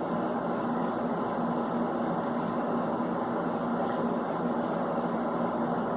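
A steady hum and hiss of room noise, unchanging throughout, with a faint low held tone in it, like a fan or other machine running.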